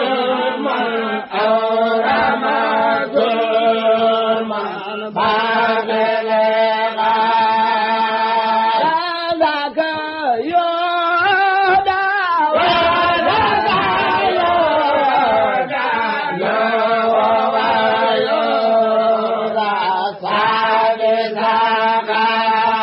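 Unaccompanied chanting of a khassida, a Senegalese Sufi devotional poem in Arabic, sung as a continuous melodic line with long held notes and pitch glides.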